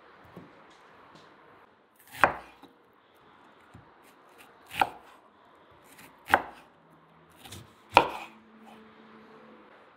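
Chef's knife slicing red onion and lemon on a wooden cutting board: four sharp knocks of the blade hitting the board, spaced about one and a half to two seconds apart, with a few lighter taps between them.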